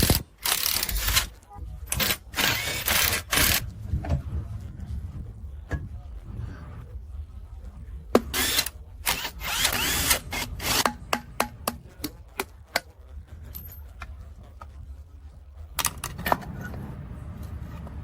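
Several short bursts of a power tool, each up to about a second long, with scattered clicks in between, over a steady low hum.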